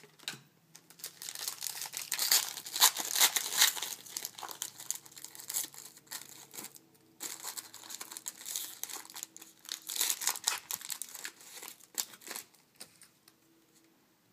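A trading-card pack wrapper being torn open and crumpled by hand: irregular crackling and rustling, loudest in the first few seconds, with a short lull just before halfway, and fading out near the end.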